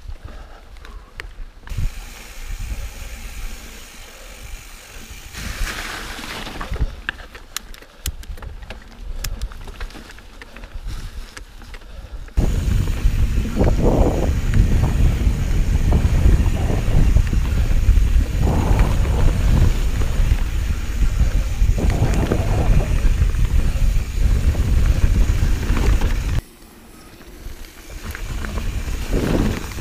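Santa Cruz Hightower 27.5+ mountain bike riding a dirt forest trail, with scattered clicks and rattles. About twelve seconds in, loud wind buffeting on the microphone suddenly takes over and masks the bike. It drops out briefly near the end, then builds again.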